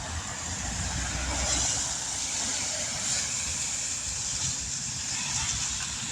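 Outdoor street noise: a steady hiss of road traffic, with wind rumbling on the microphone.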